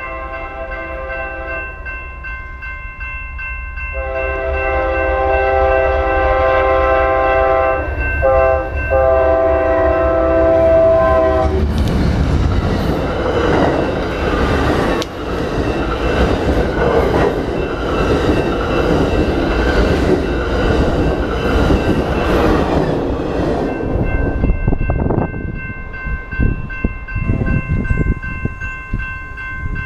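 Amtrak passenger train passing at speed close to the camera. The locomotive's multi-note horn sounds a short blast, then after a pause a long blast. From about twelve seconds in, the rush and clatter of the bi-level cars going by fills about eleven seconds. After that a steady ringing, likely the grade-crossing bells, is left.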